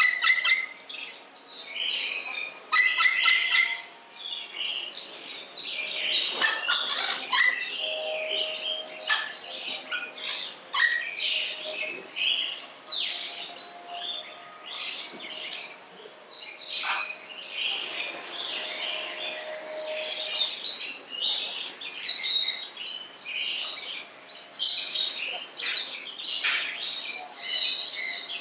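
Many small birds chirping and calling, a busy stream of short high chirps that overlap and come at irregular intervals.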